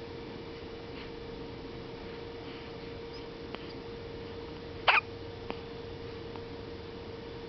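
A premature newborn baby hiccuping: one short, sharp hiccup about five seconds in, over a steady background hum.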